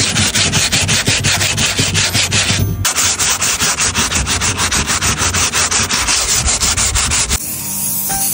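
Sheet of 120-grit sandpaper rubbed by hand over a plastic tabletop in fast back-and-forth strokes, about five a second, with a brief pause near the three-second mark, scuffing the surface ready for paint. About seven seconds in the sanding stops and a steady spray-can hiss begins.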